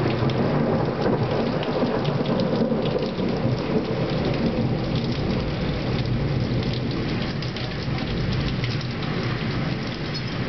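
Heavy rain pouring steadily in a severe thunderstorm, with a low rumble of thunder underneath.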